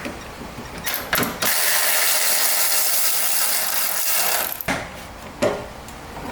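Electric ratchet running for about three seconds, spinning off a nut on the muffler mount, with a few clicks and knocks of the tool on the fittings before and after.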